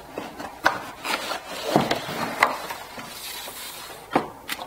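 A wrapped solar panel being pulled out of its cardboard box: the protective wrapping and cardboard rustle and scrape, with several sharp knocks as the panel catches against the box.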